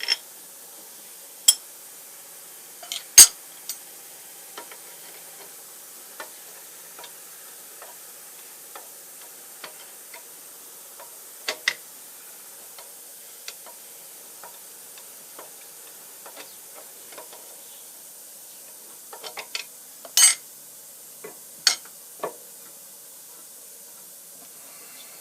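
Scattered sharp metallic clinks and taps of tools and steel parts being handled during disassembly of a machine, over a steady faint hiss; the loudest knocks come about three seconds in and again near twenty seconds, with a quick cluster just before the second.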